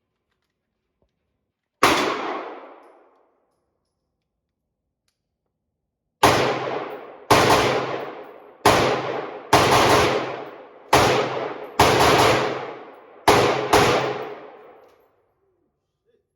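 Firearm gunshots: one shot about two seconds in, then a string of about nine shots at an unhurried, uneven pace from about six seconds in, each followed by a long echo.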